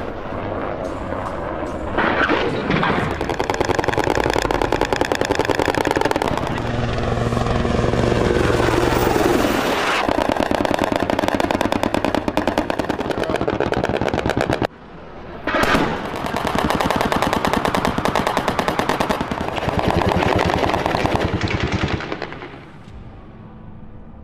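Bell AH-1Z Viper attack helicopter in flight with rapid, dense pulsing of rotor chop and gunfire. A falling sweep in pitch as it passes, a brief dip, then a sharp bang about fifteen seconds in; it grows quieter near the end.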